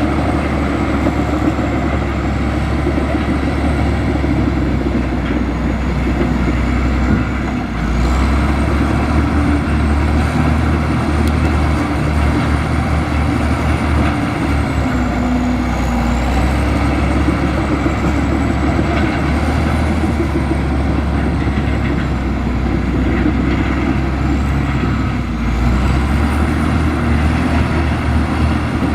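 Heavy diesel earthmoving machine running continuously under work, a dense low rumble with a faint high whine that wanders in pitch. The engine note shifts about eight seconds in and again near the end.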